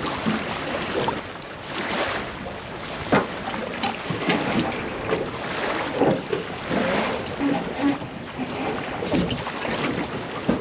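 Wind buffeting the microphone, with irregular knocks and rustles of people moving about and climbing into a small aluminum boat; the boat's engine is not running.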